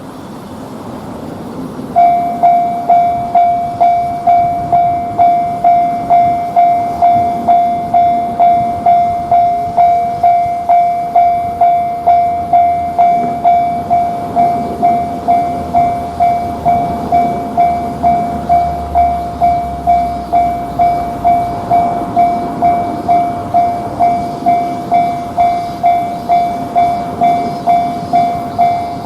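Japanese railroad crossing alarm starting about two seconds in and ringing its steady 'kan-kan' tone at about two strikes a second, the warning that a train is approaching and the barriers are coming down.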